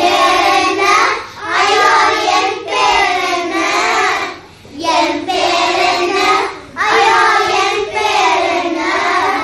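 Young schoolchildren singing a song without accompaniment, in phrases of a second or two with short breaks between them.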